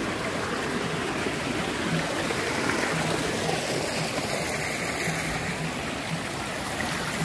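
Water rushing steadily along a narrow concrete channel beside a path, a constant running-water rush.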